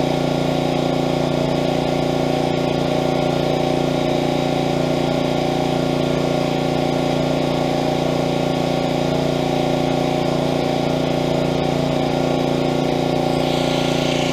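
Honda GC160 single-cylinder engine on a pressure washer, running steadily at constant speed. Its cracked crankcase has been patched with block sealer.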